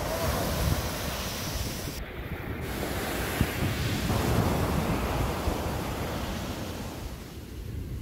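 Small ocean waves breaking and washing up a sandy beach, with wind buffeting the microphone in gusty low rumbles.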